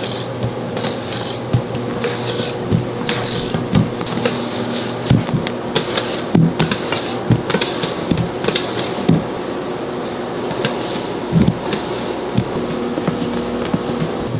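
Balloon whisk folding flour into whipped cake batter in a large stainless steel bowl, its wires tapping and clinking against the metal at irregular intervals. A steady low hum runs underneath.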